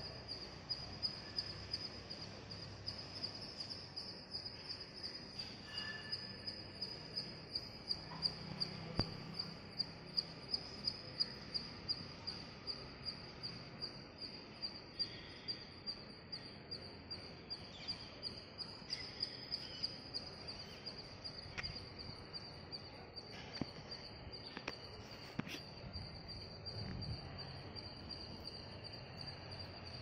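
Insects trilling steadily at a high pitch without a break, with a few short bird chirps here and there.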